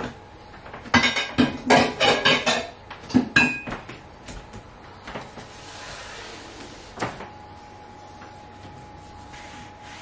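Kitchen worktop handling sounds: a couple of seconds of clattering knocks and rustling, then scattered lighter clicks and a soft rustle. A single sharp knock comes about seven seconds in, and a faint steady hum follows it.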